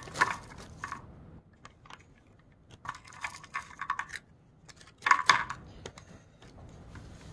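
Pretzel nuggets shaken out of an MRE pouch into a plastic compartment tray: small hard pieces clattering and clicking in three short spells, with the pouch rustling.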